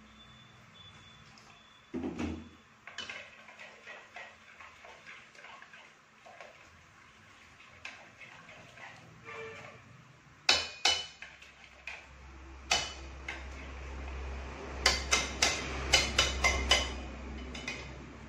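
Chopsticks stirring batter in a stainless steel pot, clicking against the metal sides, with a quick run of sharp clicks near the end. A dull thump comes about two seconds in.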